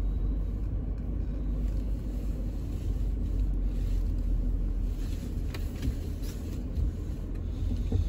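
Steady low rumble of a vehicle driving slowly over a grass field, heard from inside the cab, with a couple of light knocks in the second half.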